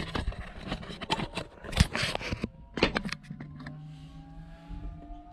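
A series of sharp clicks and knocks from switches and controls being handled. Then, a little over three seconds in, an electric motor starts with a low hum and a whine that slowly rises in pitch: the 1964 Ford Galaxie's windscreen wiper motor being switched on.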